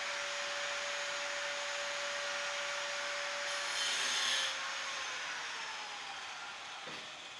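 A small electric motor whirring steadily with a hum, winding down slightly in pitch and loudness over the last couple of seconds. A short scratchy hiss comes about three and a half seconds in.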